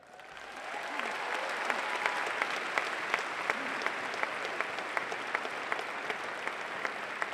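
Audience applauding, swelling over the first second and then holding steady, with sharp individual claps standing out at an even beat of about three a second.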